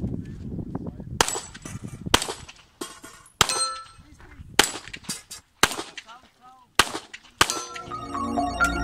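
About seven handgun shots, spaced roughly a second apart, with the ringing clang of steel targets being hit after some of them. Music begins near the end.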